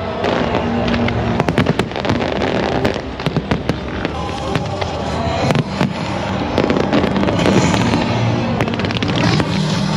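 Fireworks going off in a dense, irregular series of sharp bangs and crackling, with no pause.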